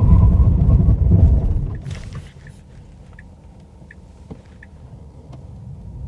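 Tesla Model 3 Highland rear-wheel drive braking hard to a stop: loud road and tyre noise inside the cabin falls away about two seconds in as the car comes to rest. A quieter stretch follows, with a few faint ticks and three short high beeps.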